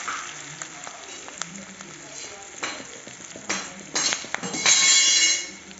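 Onion, garlic and bay leaves sizzling in hot oil in a steel kadai while a steel ladle stirs them. The ladle knocks and scrapes against the pan through the middle, with a louder burst of scraping about five seconds in.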